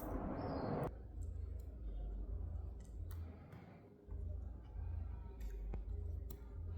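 Protective liner being peeled off the adhesive tape of an iPad screen by hand. A soft rasp comes in the first second, then low handling rumbles and a few small clicks.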